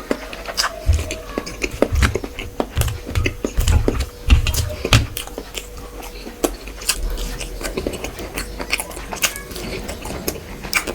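A person chewing and eating fish with rice. Many small wet clicks and taps run through, with several low thumps in the first half.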